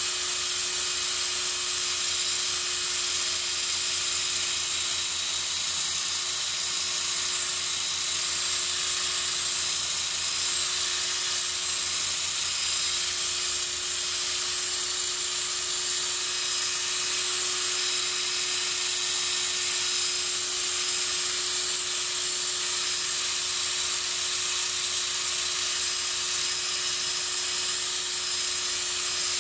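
Hitachi cordless drill running steadily with a buffing pad on a plastic pickguard: an even motor whine with the hiss of the pad rubbing the plastic.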